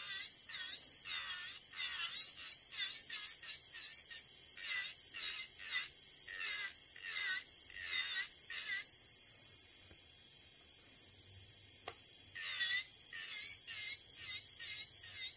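Electric nail drill with a barrel-shaped soak-off bit grinding the gel base coat off a fingernail with light pressure: a steady high whine with a quick scratchy rasp at each pass over the nail. The rasping stops for a few seconds past the middle, then the passes resume.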